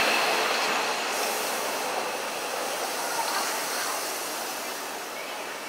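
Seibu 6000 series electric train running away along the track, its wheel and rail noise fading steadily as it recedes.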